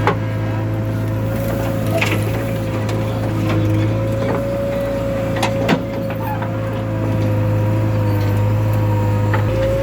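Diesel engine of a JCB 3DX backhoe loader running steadily under work, with a steady whine over the low engine hum and a few sharp knocks: one right at the start, one about two seconds in and one near six seconds.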